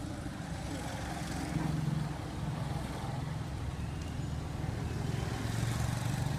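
Steady low rumble of a motor vehicle engine, swelling slightly about two seconds in and again near the end.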